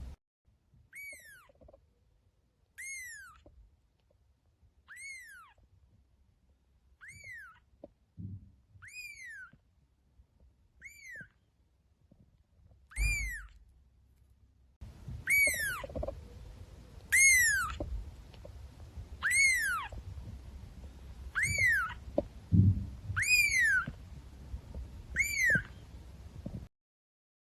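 A kitten meowing over and over: short high-pitched calls, each rising and then falling in pitch, about one every two seconds. They grow louder about halfway through.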